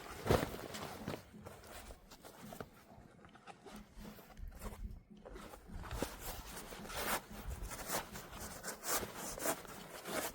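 Bags and camping gear being handled and moved into a tent: irregular rustling and scuffing, with footsteps.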